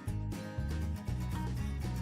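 Background music with a steady beat and a plucked, country-style guitar sound.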